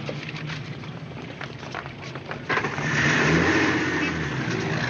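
Car engine and street traffic: a low steady engine rumble with a few faint clicks, then louder, busier traffic noise from about two and a half seconds in.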